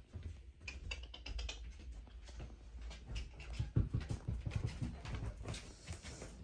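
A hand rubbing and patting a dog's thick fur, with close rustling and quick clicking handling noises, then a run of lower, faster pulses in the middle.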